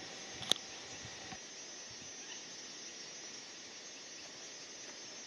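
Steady, high-pitched drone of insects in the bush, with one sharp click about half a second in.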